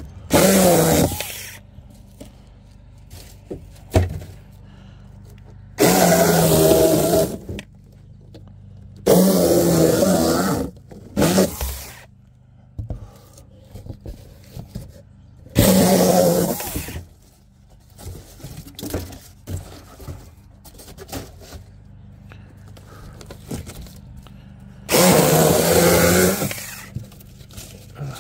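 Electric chainsaw run in about six short bursts of one to two seconds each, several seconds apart, as it makes quick cuts; between cuts the motor falls quiet.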